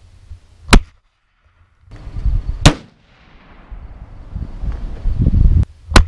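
Three shots from a .243 Winchester deer rifle, each a single sharp crack. The first two are about two seconds apart and the third comes about three seconds later.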